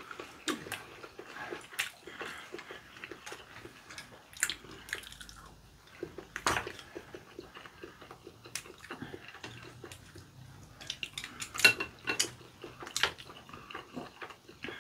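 Eating sounds at a shared pan of rabokki: chopsticks clicking against the pan and plates, with noodles being slurped and food chewed. Short sharp clicks come scattered throughout, a few of them louder.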